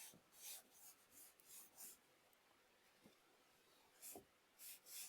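Faint, brisk swishes of a large number 12 paintbrush scrubbing paint across the painting: about five quick strokes in the first two seconds, a pause, then more strokes near the end.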